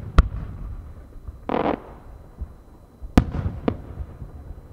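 Aerial firework shells bursting in the distance: a sharp bang just after the start, a short rushing hiss about a second and a half in, then two more bangs about half a second apart near the end.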